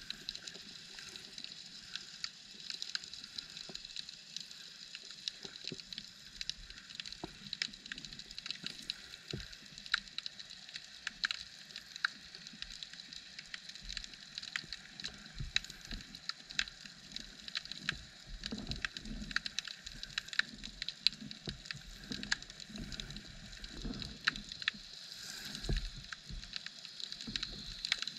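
Underwater ambience heard through a submerged action camera's housing: a steady hiss with constant irregular crackling clicks and occasional soft low knocks.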